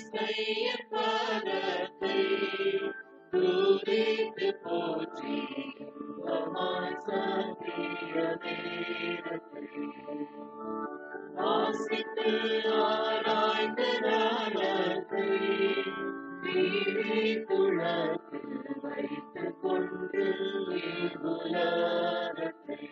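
Tamil Christian hymn being sung, a verse with sung phrases broken by short pauses, over sustained accompanying chords.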